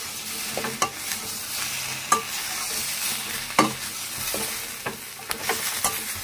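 Cabbage Manchurian balls, onion and capsicum in soy sauce sizzling in a metal pan over high flame, while a utensil stirs them with irregular scrapes and knocks against the pan. The sharpest knocks come about two and three and a half seconds in.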